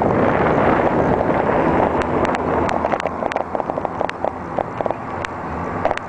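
Wind buffeting the microphone of a camera on a moving bicycle. From about two seconds in the wind noise eases and a scatter of quick rattling clicks and knocks comes through.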